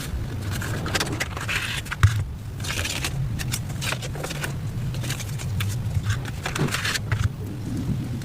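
Phone box and packaging being handled during an unboxing: repeated rustling, scraping and light clicks, over a steady low hum.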